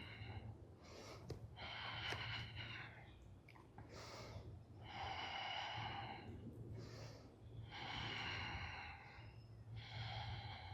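A person breathing audibly close to the microphone: a series of slow, deliberate breaths through the nose and mouth, the longer ones about a second each, recurring every two to three seconds while holding a balance pose.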